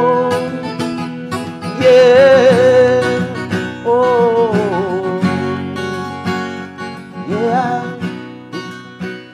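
A man's voice singing wordless held and wavering notes over a steadily strummed acoustic guitar. The sound fades toward the end.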